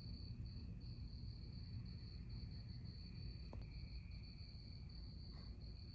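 Faint high-pitched insect chirping in short on-off pulses, over a low steady hum, with one faint click about three and a half seconds in.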